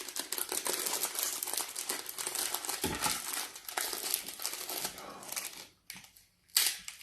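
Plastic fortune-cookie wrappers crinkling and tearing open in the hands. The crinkling stops about six seconds in, followed by one last short crinkle.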